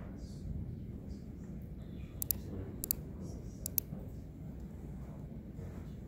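Computer mouse clicking: a quick pair of clicks about two seconds in, a single click a moment later, then another quick pair, over a steady low room hum.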